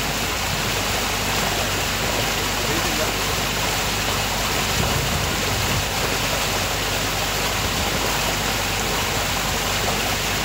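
Steady rushing noise of a moving cruise boat on a lake, water and wind along the hull, over a low, even engine hum.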